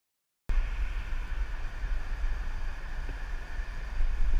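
Wind buffeting the microphone of an action camera on a pole held out ahead of a moving rider: a low, gusty rumble with a steady hiss above it. It starts abruptly about half a second in and cuts off just at the end.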